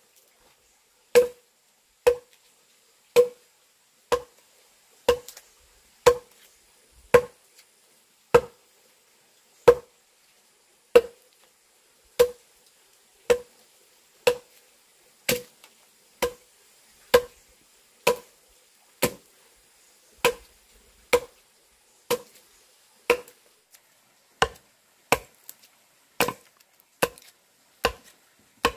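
A steel axe chopping into a log, hewing it flat with steady strokes about once a second. Each stroke is a sharp knock of blade into wood, and the strokes come a little faster near the end.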